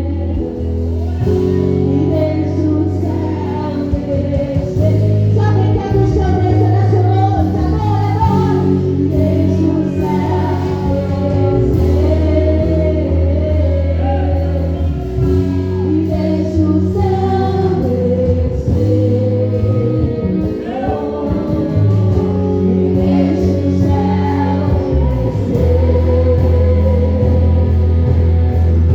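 Gospel worship song: voices singing a melody over a band with long held bass notes.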